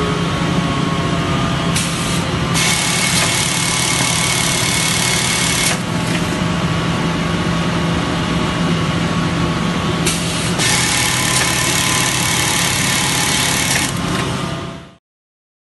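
Montex automatic sewing unit running: its industrial sewing heads, belt conveyors and electro-pneumatic handling make a steady machine hum. Two stretches of loud high hissing of about three to four seconds each ride over it. The sound fades out and stops near the end.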